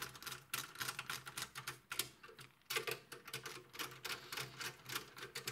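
Faint, irregular small clicks and ticks of a precision screwdriver turning Torx screws into the power supply's metal back panel.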